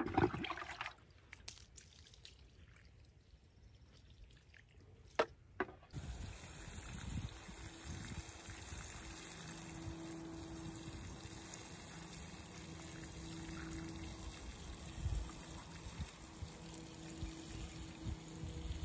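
Water pouring in a steady trickle from the spout of a plastic watering can onto dry garden soil, starting about six seconds in. Before that it is quiet apart from a couple of clicks.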